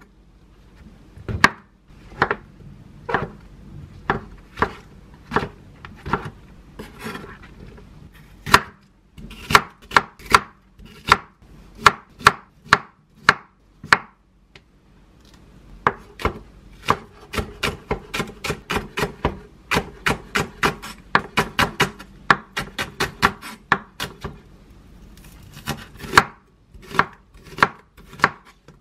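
Kitchen knife slicing king oyster mushroom, Korean zucchini and onion on a wooden cutting board: sharp knocks of the blade on the board. The knocks come about a second apart at first, then in quick runs of several cuts a second with brief pauses between.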